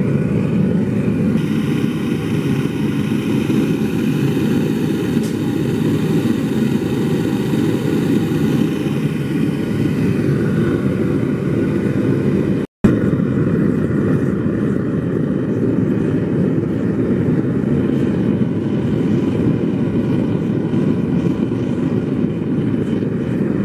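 Gas burner roaring steadily as it fires a refractory-brick kiln, heating the bricks until they glow. The roar cuts out for a split second about halfway through.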